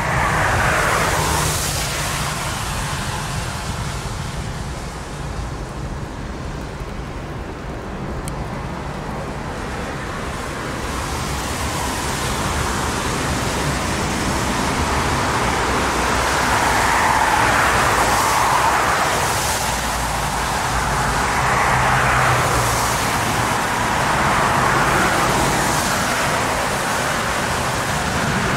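Airbus A380 landing: the steady rushing roar of its four jet engines, swelling louder in slow waves through the second half as it touches down and rolls out, mixed with the hiss of spray off the wet runway.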